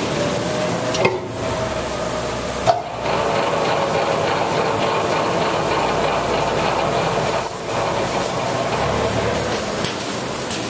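Grob 4V-24 vertical bandsaw, driven by its three-phase motor, running with the blade turning freely and nothing being cut: a steady whir with a faint hum, broken by a couple of short dips.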